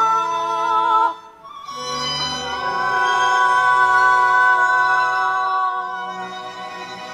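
Kunqu opera music: a singer's held note with vibrato ends about a second in, then the accompanying instruments play long, steady held notes over a low bass.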